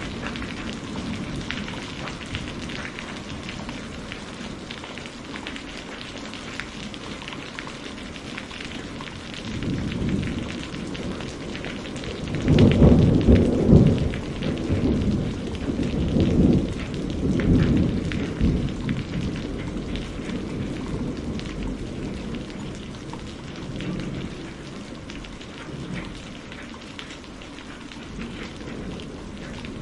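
Steady rainfall with a rolling thunderclap: the thunder swells about ten seconds in, peaks loudest from about twelve to eighteen seconds, then fades back under the rain.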